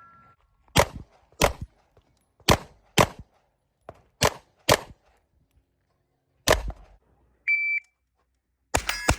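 Seven gunshots, mostly fired in quick pairs about half a second apart, with little ringing after them. Then a single short electronic shot-timer beep, followed near the end by rapid shots with steel targets ringing.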